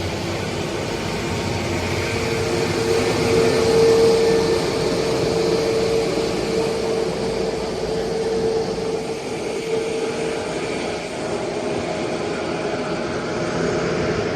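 Airliner engines running: a steady rush with a whine that swells about four seconds in and then eases.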